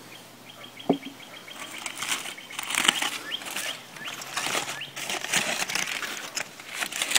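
Aluminium foil wrapped around a smoked pork butt being pulled open by hand, crinkling and rustling in irregular handfuls from about a second and a half in.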